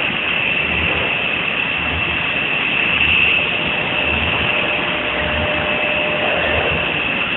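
Milltronics RW15 CNC milling machine cutting a part: a steady, loud machining noise with an even high-pitched whine over it.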